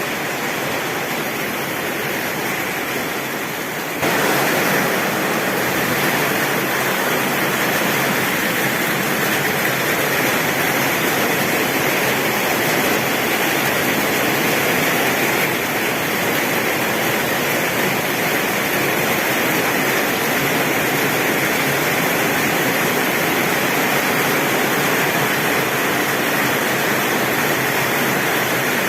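Heavy rain pouring steadily on a tin roof as an even, dense hiss. It gets abruptly louder about four seconds in, then holds steady.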